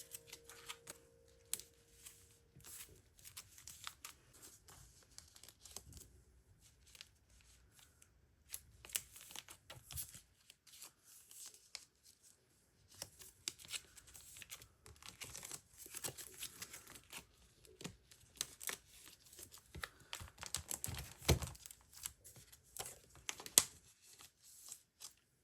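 Photocards and their plastic sleeves being handled and sorted by hand: irregular rustling, crinkling and light clicks, with no music behind them.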